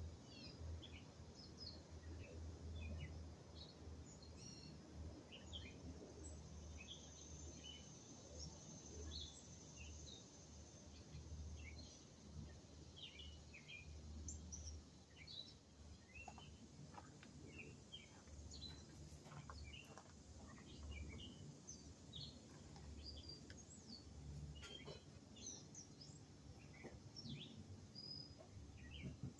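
Faint outdoor background of small birds chirping and calling over and over, with a low rumble underneath.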